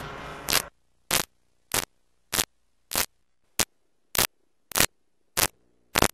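Short bursts of electronic static noise repeat at an even pace, about every 0.6 seconds, with near silence between them. They follow a loud noisy passage that cuts off suddenly within the first second.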